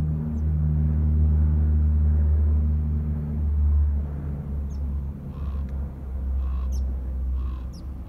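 Aircraft flying overhead: a steady low engine drone with a hum in it, easing off after about four seconds. Several short bird calls come in over it in the second half.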